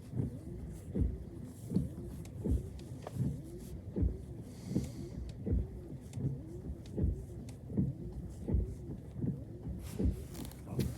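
Level crossing warning alarm sounding, a warbling tone that repeats evenly about twice a second.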